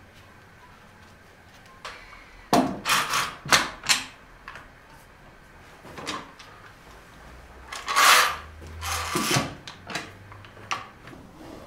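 Bar clamps being handled and fitted onto a stack of wooden boards: a series of knocks and short scraping slides of clamp and wood, the longest scrape about eight seconds in.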